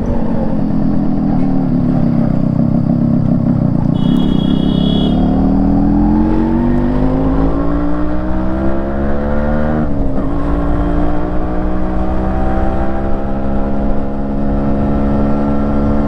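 Freshly rebuilt Yamaha RX135's 132cc single-cylinder two-stroke engine running through its stock exhaust. The revs climb steadily for several seconds, dip sharply about ten seconds in, then climb slowly again.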